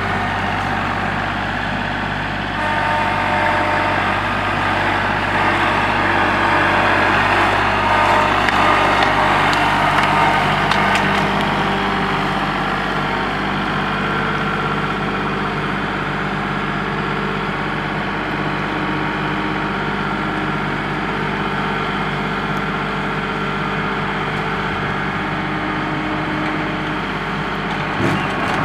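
Kubota L3901 compact tractor's three-cylinder diesel engine running steadily under loader work, its note shifting about twelve seconds in. A few knocks near the end as logs land on the trailer.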